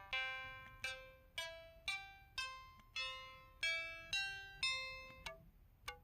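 KTF-TR2000 mobile phone keypad button tones: a run of short electronic notes at changing pitches, each struck and fading, about two a second. The last few notes are shorter and clipped.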